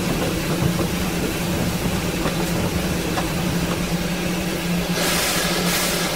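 Disneyland Railroad steam train standing at the station, a steady low hum running under it, with a hiss of steam lasting about a second some five seconds in.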